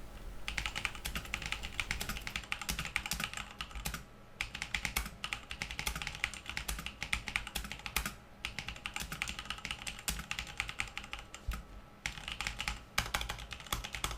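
Typing test on an Armaggeddon Raptor MKA-11R mechanical keyboard with red switches (non-Cherry clones): fast runs of key clicks and clacks, broken by short pauses about 4, 8 and 12 seconds in.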